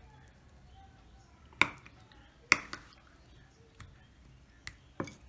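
A steel spoon clinking against a ceramic bowl while turning fish pieces in a thick mustard paste: two sharp clinks a second apart, then a few lighter taps near the end.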